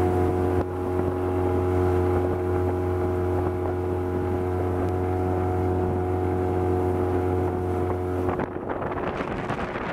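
Honda 20 hp four-stroke outboard running steadily at speed, a constant hum over the rush of wake and wind. About eight seconds in, the engine tone stops abruptly, leaving only a rushing noise.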